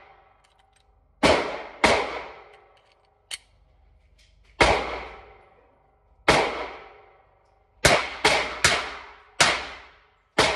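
Glock 30S .45 ACP pistol being fired: about nine shots at uneven intervals, the last several coming quicker. Each shot rings briefly off the walls of an indoor range booth.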